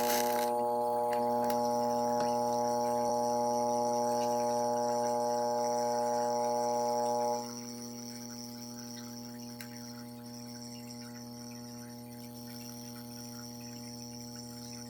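Large diaphragm aquaculture air pump running with a steady electric hum, newly fitted with replacement diaphragms and working again. About seven seconds in the sound drops noticeably quieter as its upper tones fall away, and the lower hum carries on unchanged.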